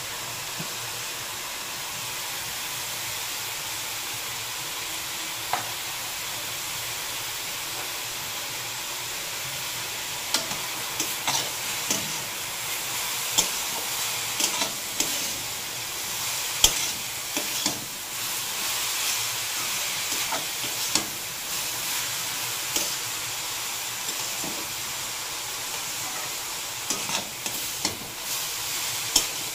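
Grated carrot, beetroot and peas sizzling in hot oil in an aluminium kadai, a steady hiss. From about ten seconds in, a metal spatula stirs and scrapes the mixture, with repeated sharp clicks against the pan.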